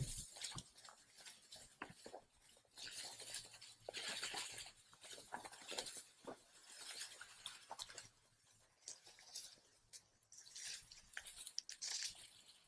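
Dry, ripe wheat stalks and ears rustling and crackling in uneven surges as someone wades through them, brushing them with legs and hands.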